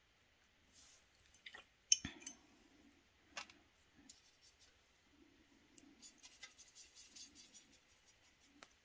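Light clicks and clinks of a paintbrush and watercolour palette being handled: a cluster with one sharper knock about two seconds in, another click a little later, then a run of faint ticking and scratching.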